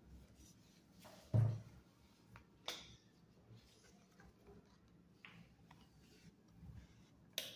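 Quiet room tone broken by one dull thump about a second and a half in and two short, sharp clicks, one a little later and one near the end.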